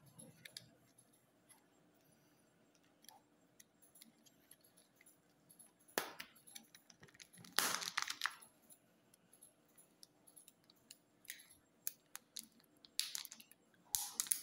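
Sweets and their plastic packaging being handled: scattered light clicks and taps, a sharper click about six seconds in, and short bursts of wrapper crinkling near the middle and near the end.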